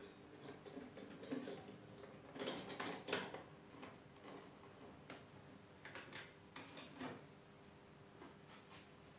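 Faint, irregular clicks and knocks, the loudest about three seconds in, over a faint steady hum.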